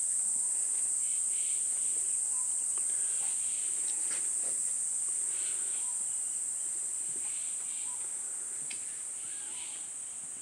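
Steady high-pitched insect chorus, a continuous shrill drone, with faint short chirps recurring and a few small clicks; it eases off slightly near the end.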